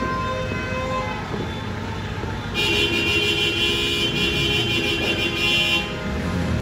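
Horns tooting in New Year's celebration: a few short toots, then a loud, long held blast starting about two and a half seconds in and lasting about three seconds, over a low background rumble.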